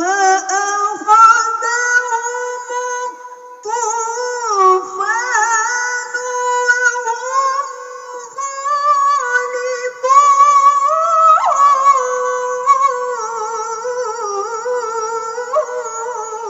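A woman reciting the Quran in the melodic tilawah style, drawing out long melismatic phrases with ornate, wavering turns of pitch. She takes a short breath about three and a half seconds in, then carries one long phrase almost to the end.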